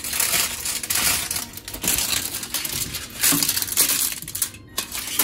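Aluminium foil crinkling and crackling as it is wrapped and pressed by hand over a metal baking tray.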